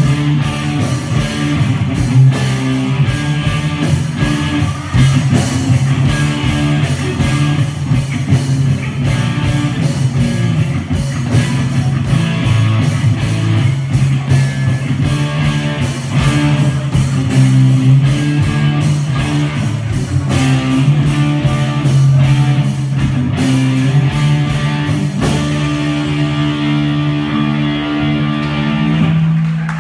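Live rock band playing: electric guitar over a steady drum beat. About four seconds before the end the drums stop and held guitar chords ring on.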